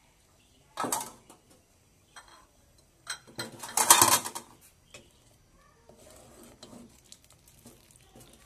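Kitchenware clattering: a clink about a second in, then a louder run of clinks and scrapes around three to four seconds in as a metal ladle knocks against a glass bowl and an aluminium cooking pot, then quieter ladling in the pot.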